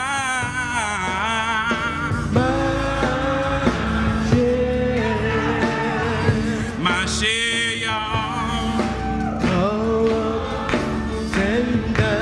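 Men's gospel choir singing with keyboard accompaniment; a lead voice sings long notes with a wide vibrato over the choir's held chords and a steady bass.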